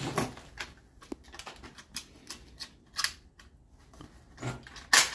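Irregular clicks and clacks of a Carcano rifle's action and a 3D-printed clip being worked by hand, with louder clacks about three seconds in and near the end.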